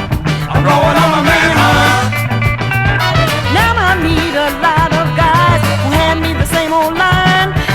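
A funk record playing: a repeating bass line and drums under a bending melodic lead line.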